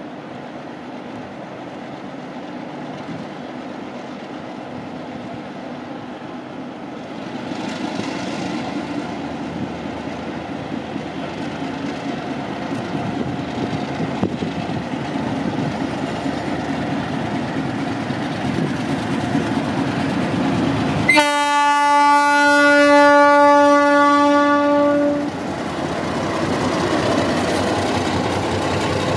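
Alco diesel locomotive 2148 departing with a train of vintage coaches: its diesel engine grows louder as it approaches. About two-thirds of the way through it sounds its horn, one steady blast of about four seconds that is the loudest sound. Near the end the coaches roll past, their wheels clattering on the rails.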